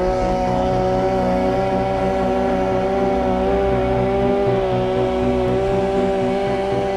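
Two-stroke chainsaw engine held at full throttle, running at a steady high pitch.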